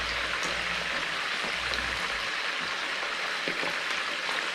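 Pieces of previously frozen mackerel frying in plenty of olive oil: a steady sizzle with only a few scattered pops. Frozen fish spatters less than fresh.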